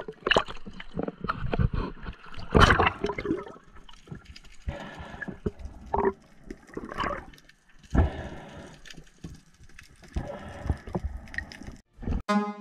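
Water sloshing and bubbling around an underwater camera in irregular bursts. Electronic music starts near the end.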